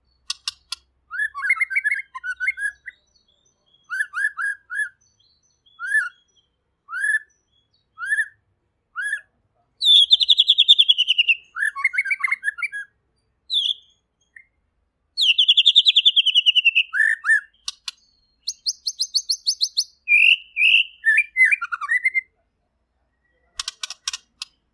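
White-rumped shama singing loudly and clearly: a run of short, down-slurred whistled notes about once a second, then two long, fast rattling trills pitched higher, and bursts of very high, rapid ticking notes near the end.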